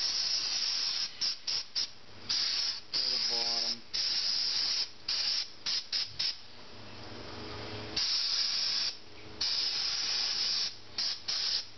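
Aerosol cleaner sprayed in blasts into a motorcycle carburetor body to flush residue out of its passages: a loud hiss, some blasts held for about a second and others in quick short spurts. A low hum swells in a pause about two-thirds of the way in.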